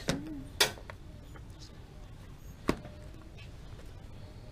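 A few sharp, short clacks of hard items being handled: two close together near the start and one more under three seconds in, with a brief murmur at the start.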